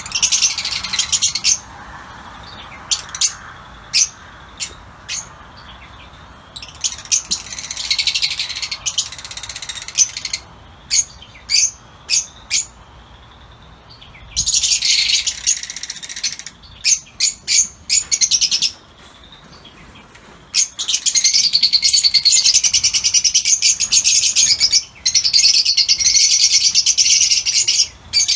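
Fischer's lovebirds calling: shrill, high-pitched chirps, with single sharp calls between bursts of chatter that become nearly continuous about two-thirds of the way through.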